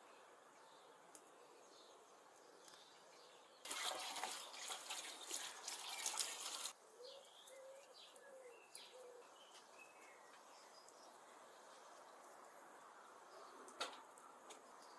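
Birds chirping faintly in a garden. About four seconds in, a loud crackling noise lasts about three seconds.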